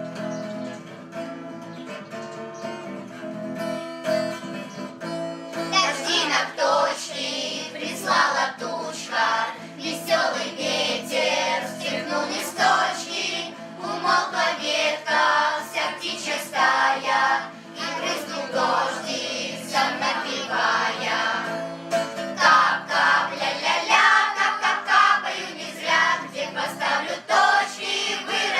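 A song with guitar accompaniment: a few seconds of guitar intro, then voices singing come in about six seconds in and carry on over the guitar.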